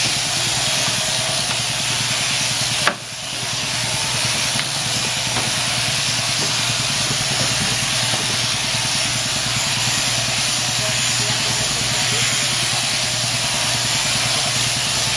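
Overhead-drive sheep-shearing handpiece running steadily as it cuts through the fleece: a continuous hissing whir over a low hum. A single sharp click about three seconds in.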